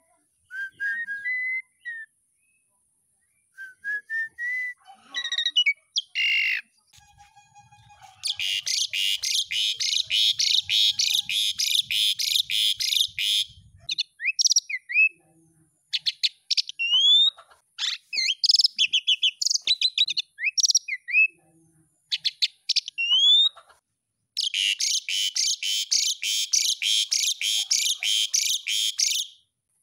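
Asian pied starling (jalak suren) singing: a few short rising whistles, then long runs of fast, harsh chattering, broken by separate whistled notes and upward-sliding calls.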